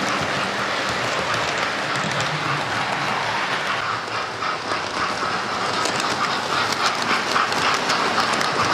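Model railway trains running: a steady whirr of small electric motors and wheels on the rails, with clicking over the rail joints. The clicking gets denser and louder in the second half as a locomotive comes near.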